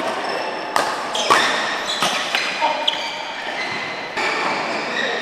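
Badminton rally in a large hall: a string of sharp racket strikes on the shuttlecock, about six in under three seconds, over a steady background hiss, then the hits stop as the rally ends.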